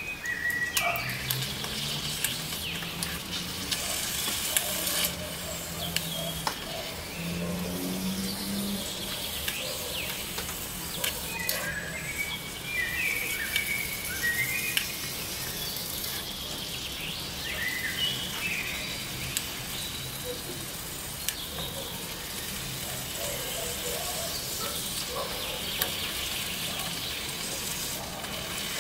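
Egg and chili sizzling in a tiny wok, with a small utensil scraping and clicking against the pan as the egg is stirred and broken up. Birds chirp faintly in the background.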